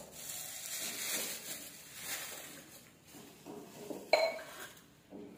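Sipping and swallowing from a steel tumbler, then the metal tumbler is set down with a sharp ringing clink about four seconds in.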